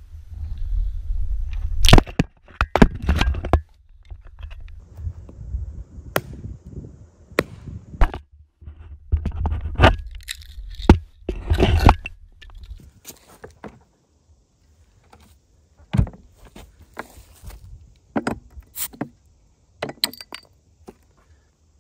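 Hatchet splitting firewood on a stump: a run of sharp cracks and knocks as the blade bites and the wood splits, loudest in the first half. Near the end, fainter clicks and a knock as a bottle cap is pried off on a cooler's built-in bottle opener.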